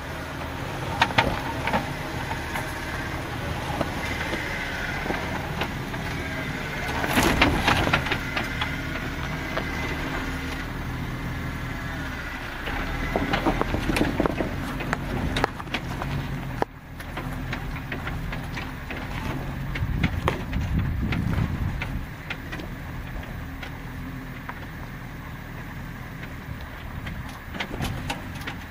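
Jeep Wrangler engine running at low revs while crawling over a rocky trail, with scattered knocks and crunches as the tyres and a towed off-road trailer climb over rock.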